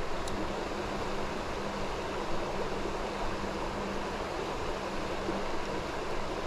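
Creek water rushing steadily over rocks in a shallow riffle.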